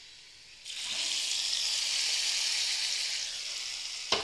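Hot tempering oil with mustard seeds, shallots, dried red chillies and curry leaves poured into a pot of curry. It starts sizzling suddenly as it hits the liquid, about a second in, then slowly dies down. A sharp knock comes near the end.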